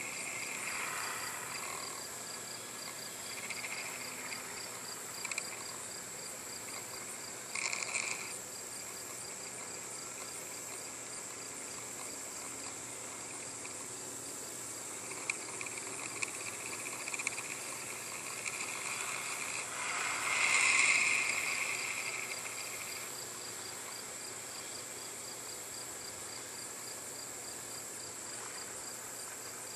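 A steady high-pitched chorus of insects chirping, with a fainter whine from the RC Tiger Moth's distant electric motor and propeller that comes and goes and swells loudest, then fades, about two-thirds of the way in.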